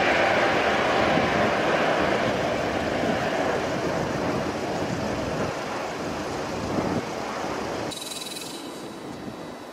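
Twin-engine business jet climbing away after takeoff, its engine noise fading steadily as it recedes. About eight seconds in the sound cuts abruptly to a much quieter background.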